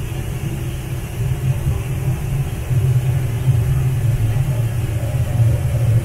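Heavy-oil burners firing in a steamship's boiler, a loud steady low rumble that grows louder about three seconds in.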